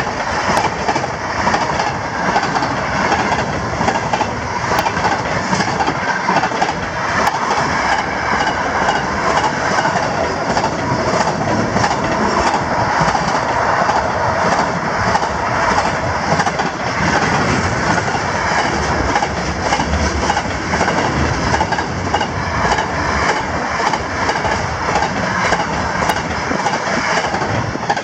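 Container wagons of a long intermodal freight train rolling past close by: a steady rumble and clatter of steel wheels over the rails. The sound falls away at the very end as the last wagon clears.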